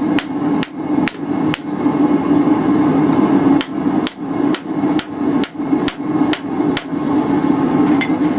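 Hammer blows forging a hot railroad spike on an anvil, about two strikes a second in a steady rhythm, with a steady low hum underneath.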